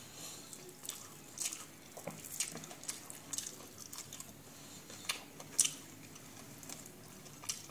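Close-up eating sounds: chewing and wet mouth smacks, with a few faint clicks of cutlery or dishes, coming at irregular moments.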